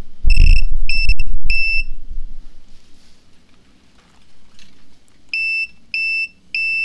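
A 1000 W modified sine wave power inverter sounds its fault alarm in high-pitched electronic beeps. First comes one longer beep followed by a few short quick ones. Near the end come three evenly spaced beeps about half a second apart. A loud low rumble comes with the first beeps. The owner traces the alarm to a faulty connector whose screws are too wide to seat properly.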